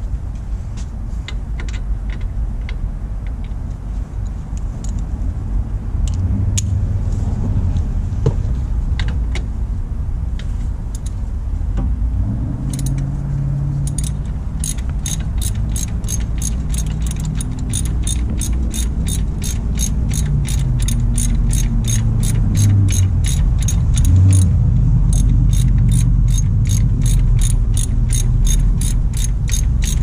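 Hand ratchet wrench clicking as bolts on a 1G alternator are worked during its removal: a few scattered clicks at first, then a steady run of about three clicks a second from roughly halfway through, over a low rumble.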